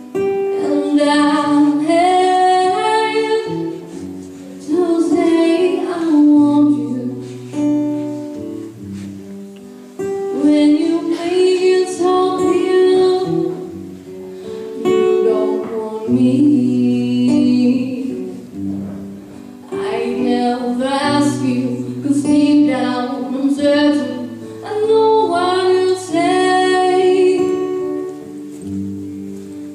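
A girl singing a song, accompanied on acoustic guitar, in phrases of a few seconds each.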